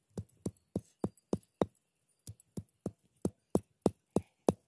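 A stone pestle pounding coconut pieces on a stone grinding slab (pata): sharp knocks about three a second, with a brief pause partway through.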